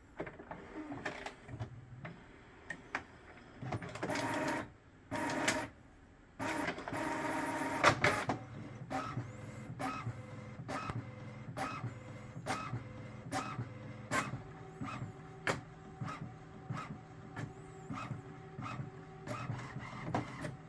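HP OfficeJet 4520 inkjet printer printing a page. Its motors whir, with two loud feeding runs in the first eight seconds, and then the print carriage shuttles with a regular click about every two-thirds of a second.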